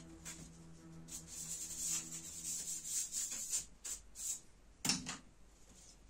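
The plastic bottom case of a laptop being rubbed clean of dust: a couple of seconds of scratchy rubbing, then a few light clicks and a single knock about five seconds in.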